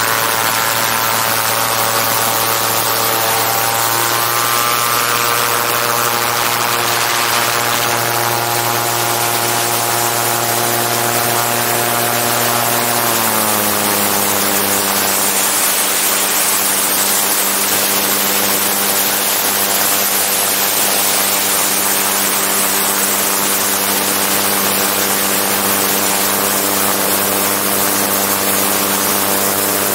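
Autogyro's engine and propeller running steadily in flight, over heavy wind rush on the onboard microphone. About 13 seconds in, the engine note steps down in pitch and holds at the lower speed.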